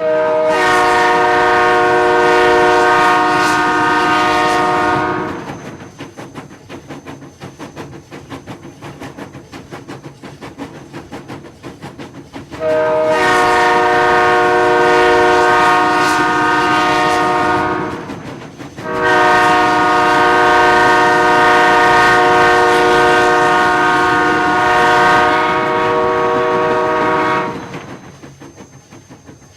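Train horn sounding three long blasts, each a chord of several tones, the last two close together and the third the longest, over the steady clickety-clack of train wheels rolling over rail joints.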